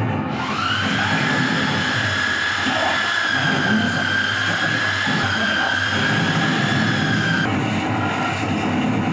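Toshiba electric drill, rigged as a makeshift lathe, spinning up in the first half-second and then running at a steady high whine. The whine drops out about seven and a half seconds in.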